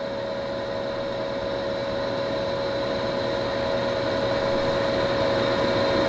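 Electric space heater's fan running with a steady whir and a faint steady tone in it, growing gradually louder as the heater is turned up and draws more power.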